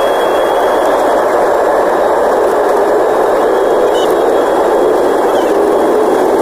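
Airliner jet engines at takeoff power heard inside the passenger cabin: a loud, steady rushing noise.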